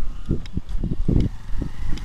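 Footfalls of a person running downhill on a concrete road, picked up through a body-carried action camera as dull low thumps, about three a second.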